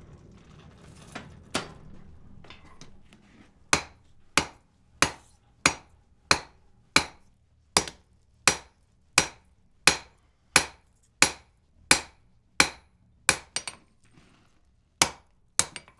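Hammer blows forging a hot wrought-iron bar on an anvil. The strikes come steadily about every two-thirds of a second from about four seconds in, each with a short ring, with a brief pause near the end.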